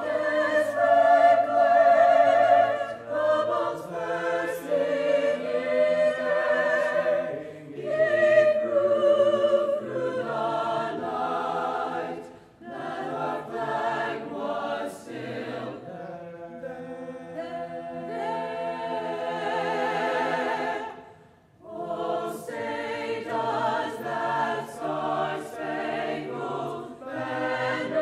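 A cappella choir singing in harmony, several voices together, with a short break about three quarters of the way through before the voices come back in.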